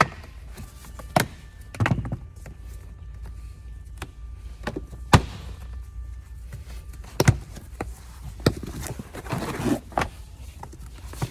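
Sharp knocks and thuds a few seconds apart, with some rustling about nine seconds in, from hands working around a car's interior trim.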